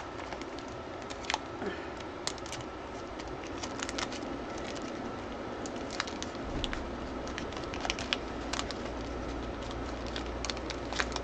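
Paper die cuts handled and shuffled by hand: light rustling with scattered small clicks and crackles.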